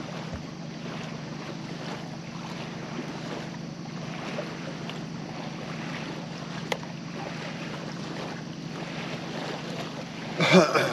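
Steady outdoor river ambience of wind and water around a small fishing boat, with a faint steady low hum underneath. A single sharp click comes about two-thirds of the way through, and a brief burst of voice comes near the end.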